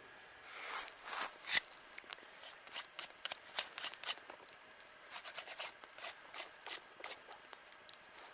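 A knife shaving and scraping the end of a thin wooden stick to a point, in quick irregular strokes, with one sharper click about a second and a half in.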